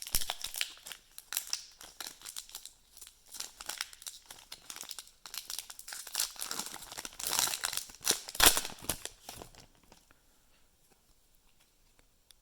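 Plastic wrapper of a trading card pack being torn open and crinkled, a dense run of crackling with its sharpest crackle a little over eight seconds in, then stopping about ten seconds in.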